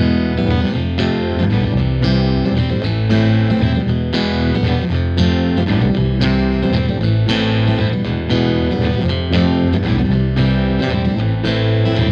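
Background music: electric guitar with a steady beat.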